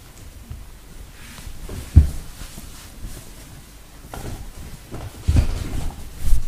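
Handling noise of a terry-cloth bathrobe being pulled on, with a few dull thumps from movement close to the microphone; the loudest thump comes about two seconds in, and more follow near the end.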